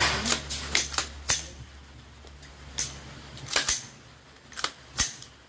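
Taurus T4 5.56 semi-automatic rifle firing a string of about ten single shots at an uneven pace, some in quick pairs and others a second or more apart, each a sharp crack.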